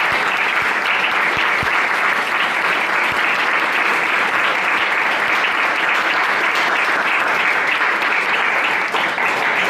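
Audience and panel applauding, a steady round of clapping.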